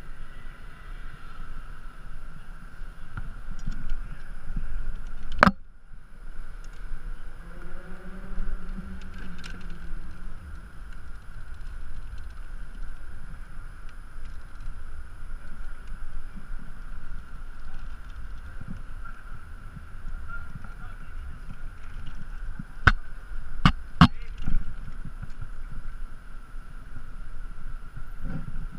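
Wind buffeting the microphone of a camera worn while rappelling down a high-rise. Sharp clicks cut through it, one about five seconds in and three close together near the end. A short honk-like tone rises and falls about eight seconds in.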